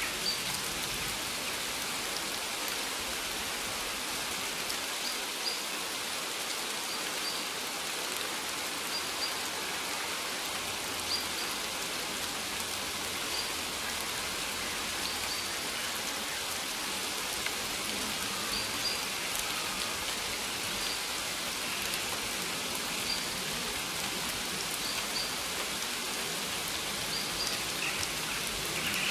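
Steady rain falling on maize leaves: an even hiss with scattered single drop taps.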